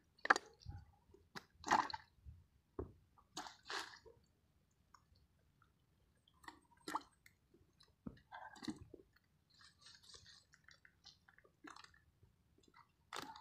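Hands picking wet fish out of a fishing net heaped with dry leaves: scattered short rustles, crinkles and squishy handling noises with quiet gaps between them.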